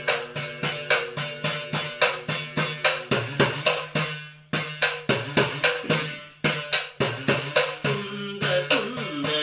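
Idakka, the Kerala hourglass drum, struck with a stick in a steady rhythm of about three to four strokes a second, its notes bending up and down in pitch, with brief pauses around the middle. A steady low drone sounds underneath.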